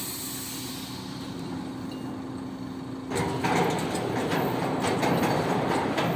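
Heavy vehicle running with a rumble and rattle, getting clearly louder about three seconds in.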